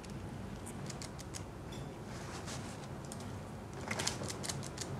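Small clicks and crinkles of fingers handling chips and wings in cardboard food boxes at a table, over a low room hum, with a quick run of clicks about four seconds in.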